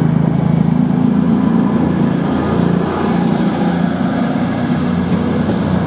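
CrossCountry Class 220 Voyager diesel multiple unit pulling out, its underfloor diesel engines running with a steady drone as the coaches go by. A faint high whine rises about four seconds in.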